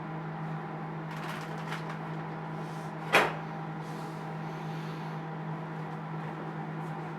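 Microwave oven running with a steady hum while it heats. A single sharp knock or click sounds about three seconds in.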